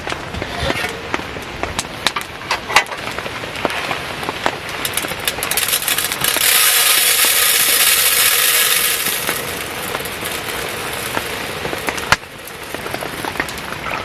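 Wood campfire crackling with sharp pops while rain patters steadily. About six seconds in, a louder steady hiss swells for about three seconds, then eases back.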